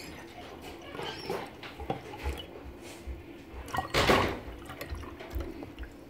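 Drink poured from a plastic bottle into a glass tumbler, the splashing of the liquid loudest about four seconds in, among a few small knocks.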